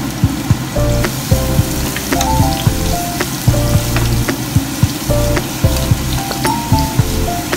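Chopped garlic and onion sizzling in hot oil in a nonstick pan, stirred with a wooden spatula that knocks lightly against the pan now and then. Background music with a slow melody plays over it.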